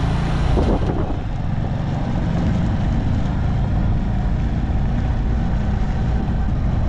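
Motorcycle engine running steadily at riding speed on a dirt road, with a continuous rumble of road and wind noise.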